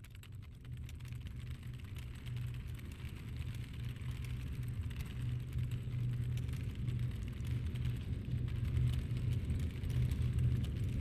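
Fast, dense clatter of computer keys being typed over a low, steady drone that keeps swelling louder.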